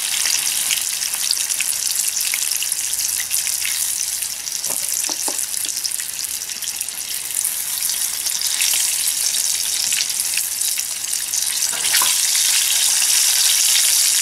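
Steelhead trout pieces deep-frying in hot oil in a camp skillet: a steady crackling sizzle, louder for the last couple of seconds.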